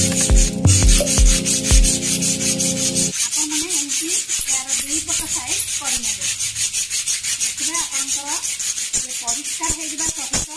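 Sandpaper with roasted salt scrubbed back and forth over a rusty kitchen knife blade, in quick even strokes, taking off the rust and putting an edge on the blade. Background music with a beat plays under it and stops about three seconds in.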